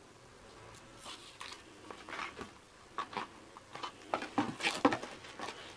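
Soft, irregular rustles and taps of a cardboard panty-liner box and its contents being handled and set aside.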